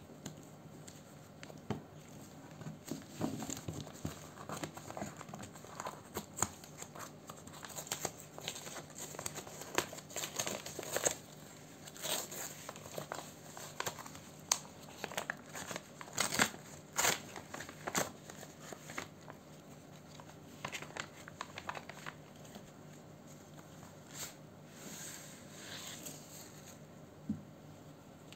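Brown kraft-paper envelope being handled and torn open along its sealed flap: irregular paper rustling and crinkling with sharper tearing, busiest in the middle.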